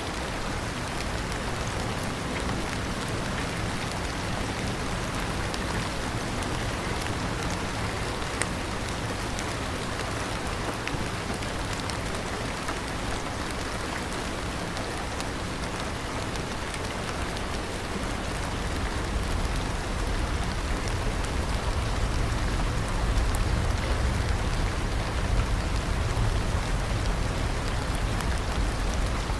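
Steady rain falling, an even hiss with faint pattering drops. About two-thirds of the way through, a deeper low rumble under it grows louder.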